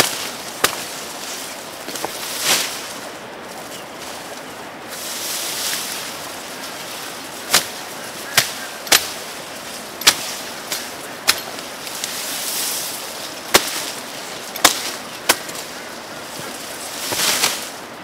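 Tall grass stalks being cut and snapped by hand: a dozen or so sharp snaps at irregular intervals, with rustling of leaves between them.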